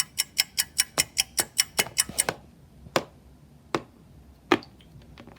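A quick, even run of sharp clicks, about five a second, stops a little over two seconds in. Three single clicks follow, roughly a second apart.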